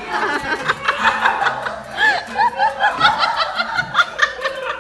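High-pitched laughter, a run of quick rising-and-falling 'ha' sounds, over background music.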